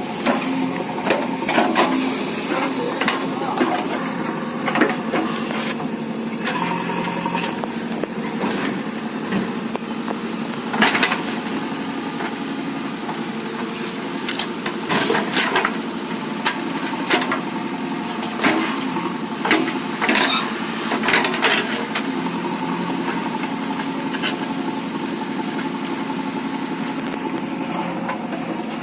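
JCB earthmover's diesel engine running steadily, with scattered sharp knocks and clanks.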